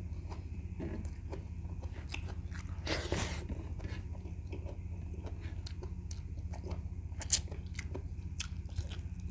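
Close-up chewing and biting as a man eats braised goat feet off the bone, with scattered mouth clicks and one louder mouth noise about three seconds in. A steady low hum runs underneath.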